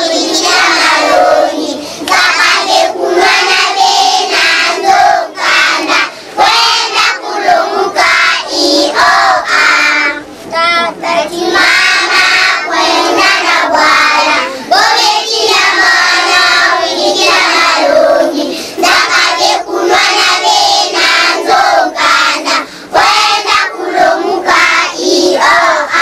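A class of young primary schoolchildren singing a school song together in unison, about being sent to school to learn, with no dangerous games or fighting.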